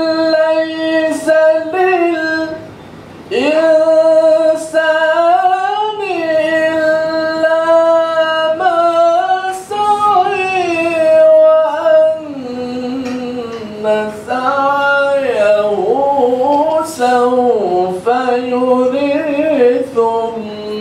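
A man reciting the Quran in the melodic, chanted tarannum style through a handheld microphone. He holds long ornamented notes that glide up and down, with short breath pauses between phrases, and the voice moves to a lower register about halfway through.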